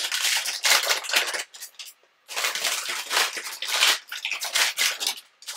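Plastic wrapper of a Tim Tam biscuit packet crinkling and rustling as it is pulled open by hand, in quick bursts with a short break about two seconds in.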